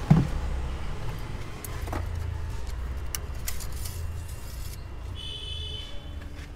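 A loud thump as an upturned plastic oil bottle is set into a car engine's oil filler. Light clicks and taps of handling under the bonnet follow, over a steady low hum. A brief high-pitched chirp sounds about five seconds in.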